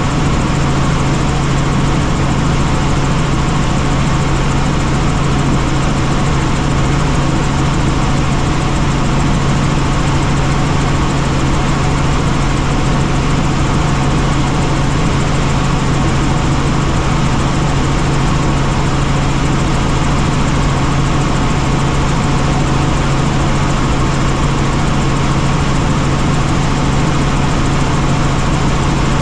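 Helicopter running steadily: a constant low hum under a broad, even rushing noise of engine and rotors, unchanging throughout.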